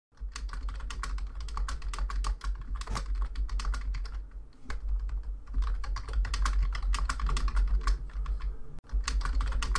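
Computer keyboard typing: quick, irregular key clicks, with short pauses about halfway and near the end, over a steady low hum.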